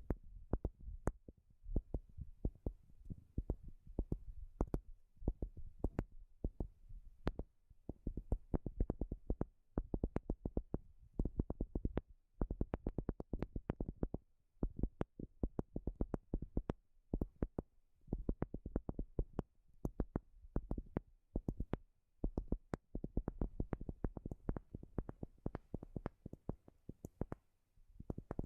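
Fingertips and nails tapping on a wooden surface in quick flurries of many light taps, with short pauses between runs.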